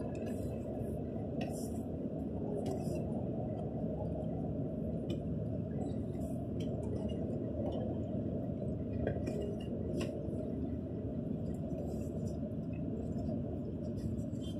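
Steady low rumble of a moving coach heard from inside the cabin at highway speed, with scattered light clinks and rattles.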